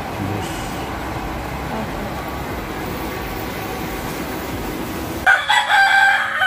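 Steady background hum and hiss, then about five seconds in a rooster crows loudly: one long call held on a pitch.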